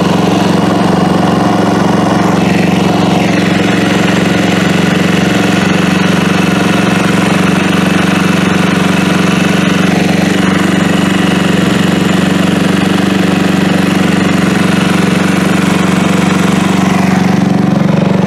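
Genuine Buddy 125 scooter's 125cc four-stroke single idling steadily through a new Prima stainless exhaust. The owner thinks it might have an exhaust leak.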